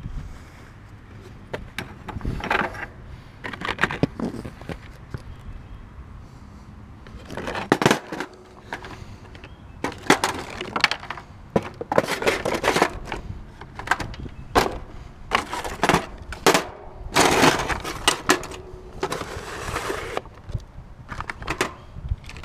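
Irregular handling noise close to the microphone: clicks, knocks and rustles of a plastic package and tools being handled, and of the head-worn camera being knocked about as it is repositioned. The knocks are quieter in the first several seconds and grow busier and louder after about eight seconds.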